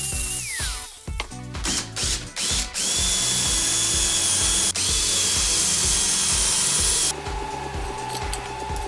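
An angle grinder's whine falls away as it spins down after cutting a steel bracket; from about three seconds in, a Makita cordless drill runs steadily for about four seconds, drilling through the bracket, and stops abruptly. Background music with a steady beat plays throughout.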